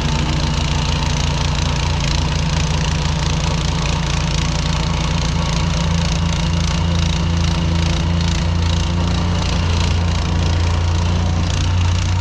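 Diesel engine of a compact construction machine running steadily at constant speed, with a fast, even clatter over it.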